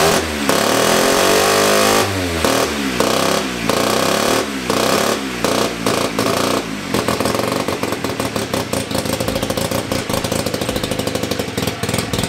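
Freshly rebuilt 294cc Sachs KC27 single-rotor Wankel (rotary) motorcycle engine running on a garage floor. It is held at high revs for about two seconds, then blipped up and down several times. About seven seconds in it drops back to a lower, uneven run.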